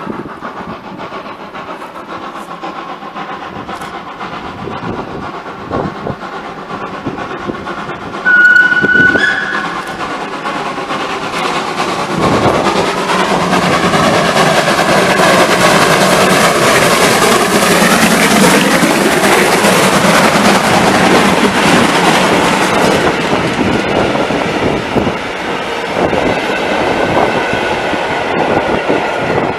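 Steam locomotive hauling coaches past at close range. A single loud whistle blast about eight seconds in steps up in pitch just before it stops. The engine then draws near and passes, its wheels clattering over the rails, and the sound eases as the coaches go by.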